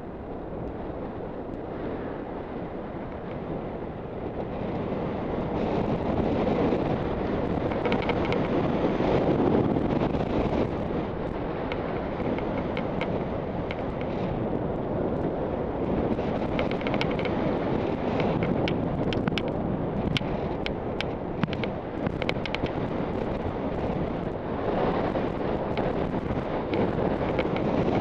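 Wind rushing over a helmet camera's microphone during a downhill ski run, growing louder a few seconds in as the skier gathers speed. Short scrapes and clicks of the skis on packed snow run through it.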